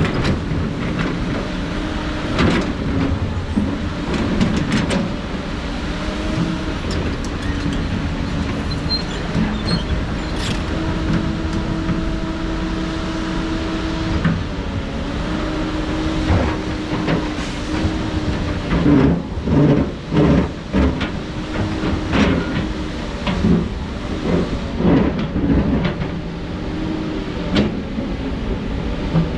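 Heavy diesel earthmoving machinery, an excavator working rock, running steadily under load with a held hydraulic-type tone. Repeated sharp clanks and knocks of rock on steel come through it, bunched together about two-thirds of the way through.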